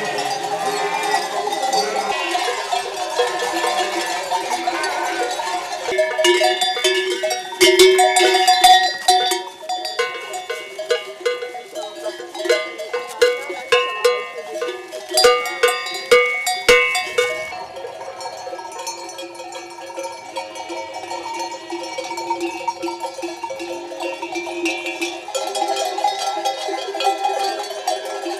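Many bells worn by a walking flock of sheep clanking and ringing together in a dense, steady jangle. The clanking turns louder and sharper through the middle stretch, then settles back to a softer ringing.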